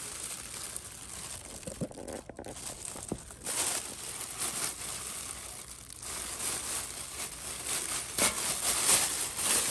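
Clear plastic bag crinkling and crackling as hands pull and pick at its tied end to unwrap a stainless steel pot.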